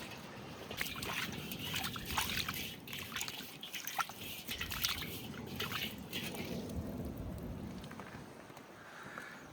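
Water sloshing and trickling in a container, with irregular small splashes and knocks for the first six seconds or so, then dying down.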